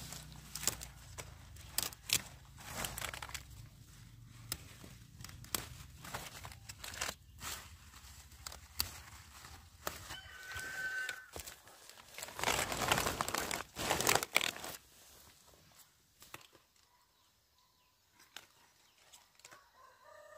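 A chicken calls once, briefly, about ten seconds in, over repeated crackling and snapping. A louder spell of rustling follows a couple of seconds later, then it goes quiet.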